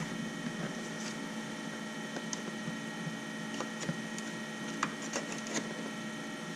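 Faint scattered clicks and taps of plastic dashboard trim being handled, a few of them a second apart near the middle, over a steady background hum.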